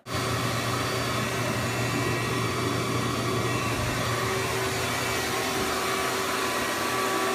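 A vacuum used to suck up the bees runs steadily, making a constant rushing noise over a low hum.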